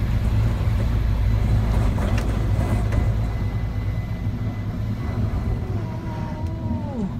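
Coaxial-rotor Kamov helicopter overhead, its rotors beating low and steady, then fading slowly over the last few seconds as it climbs away.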